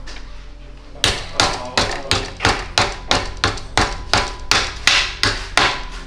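Hammer blows in a steady, even run of about fourteen strikes, roughly three a second, starting about a second in, each with a short ring.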